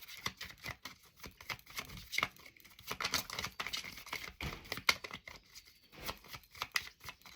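Cards being handled and shuffled: a dense run of crisp paper clicks, snaps and rustles.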